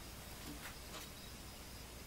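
Quiet room hiss with a few faint light clicks about half a second to a second in, as a small cartridge fuse is handled and drawn out of an oscilloscope's plastic fuse drawer.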